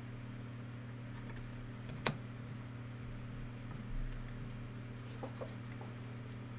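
Scattered light clicks and taps of handling at a desk, with one sharper click about two seconds in and a soft bump near four seconds, over a steady low hum.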